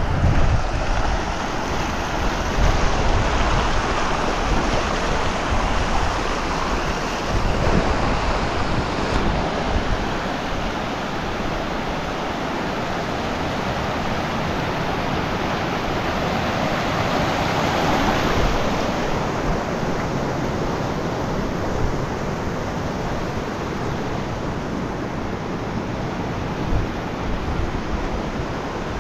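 Wind on the microphone: a steady rushing noise with uneven low buffeting, heaviest in the first ten seconds or so, then steadier.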